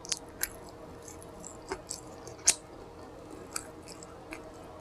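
Close-miked chewing with wet lip smacks and mouth clicks: a handful of short, sharp smacks, the loudest about halfway through.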